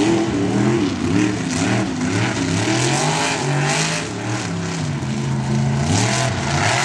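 Lifted mud truck's engine revving hard under heavy throttle as it charges over dirt mounds. The pitch swings up and down repeatedly, holds level for about a second in the middle, then climbs again near the end.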